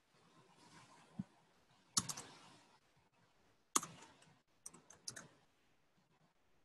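Computer keyboard keystrokes, a few scattered clicks with pauses between them: a group about two seconds in, then several more between about four and five seconds.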